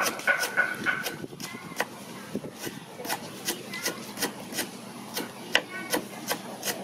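Large kitchen knife slicing fresh lemongrass stalks against a wooden chopping board, each cut a crisp tap in a steady rhythm of about three a second.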